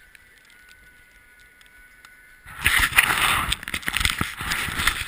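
Quiet for about two and a half seconds, then a sudden loud rush of scraping and crunching with many knocks: a snowboard sliding fast over snow close to the camera.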